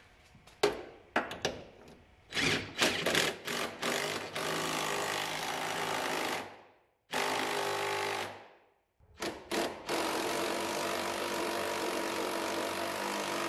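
Impact wrench on a long socket extension running down the engine cradle bolts: a few metal clinks as the socket goes on, then three long hammering runs, with two short stops between them.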